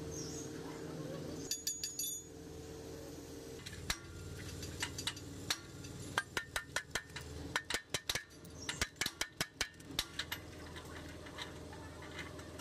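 Steel tapered roller bearings from a truck's front wheel hub clinking and rattling as they are scrubbed by hand in a basin of soapy wash water. A few clinks come early, then a quick run of sharp clinks fills the middle.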